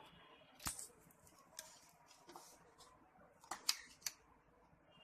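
A few sharp clicks and light knocks from hands handling food and utensils, the loudest a cluster about three and a half to four seconds in.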